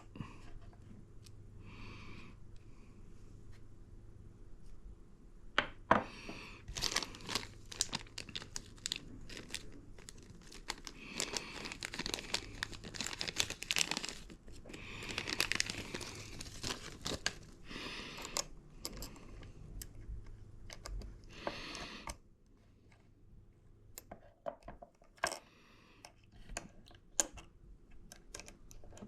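Small hand tool parts being handled at a bench: irregular rustling and scraping with many small clicks as a quarter-inch ratchet is worked on and a bit holder is tried in it, busiest in the middle and dwindling to scattered clicks near the end.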